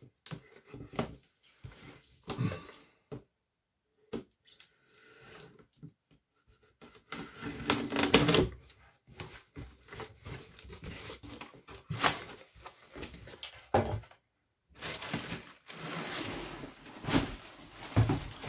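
Cardboard box being opened by hand: a knife slitting the packing tape, irregular knocks and scrapes of the cardboard flaps, then rustling plastic wrap near the end as the wrapped rack is lifted out.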